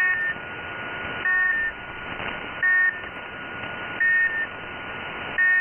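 UVB-76, the "Russian buzzer" on 4625 kHz, heard through a shortwave receiver in upper sideband. It sends short two-tone beeps, five of them, about one every second and a half, over shortwave hiss with a faint steady tone underneath. This beeping is the station's changed signal in place of its usual buzz.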